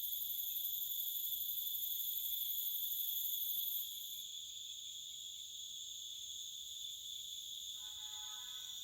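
Crickets chirring in a steady, continuous chorus of several high-pitched layers; the highest layer stops about four seconds in. Near the end a faint, brief pitched call sounds underneath.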